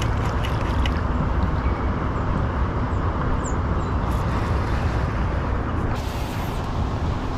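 Steady low rumble of road traffic, with a few faint ticks, a short high chirp about three and a half seconds in, and a brighter hiss that comes in about six seconds in.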